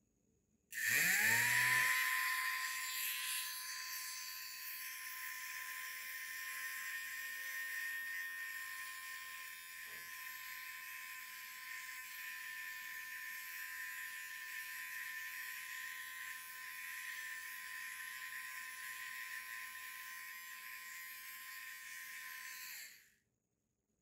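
Homemade bottle-cap mini vacuum cleaner's small DC motor spinning up with a quickly rising whine, then running at a steady high whine over a hiss while it sucks up scraps. It cuts off suddenly near the end.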